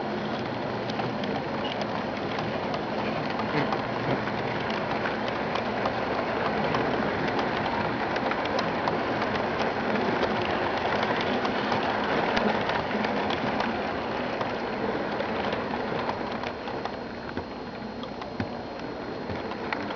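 HO-scale model trains running: a steady crackling rattle of small metal wheels on the track, peppered with many fine clicks.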